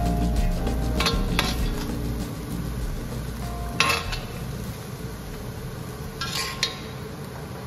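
Food sizzling in an iron wok as a metal wok spatula stirs and scrapes through vegetables, with a few sharp scrapes and clinks of the spatula against the wok about 1, 4 and 6.5 seconds in. The sizzle grows gradually quieter.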